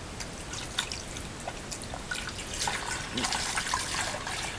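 Water poured from a plastic gallon jug through a wire-mesh strainer into a plastic bowl of guar-gum gel mix: scattered drips at first, then a fuller trickling stream from about two and a half seconds in.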